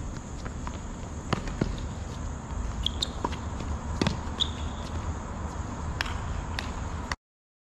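Tennis rally on a hard court: scattered sharp racket hits and ball bounces, the loudest hit about four seconds in, with footsteps and a few short shoe squeaks over a low steady hum. The sound cuts off suddenly about seven seconds in.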